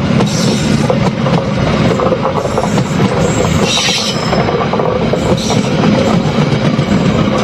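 Lodaya passenger train running along the track: a steady rumble with wheel clatter over the rails, and a few brief high wheel squeals.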